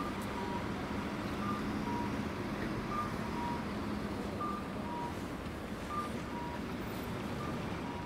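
A repeating two-note electronic chime, a short higher beep followed by a slightly lower one, about every one and a half seconds, over the steady hum of street traffic and a bus engine running.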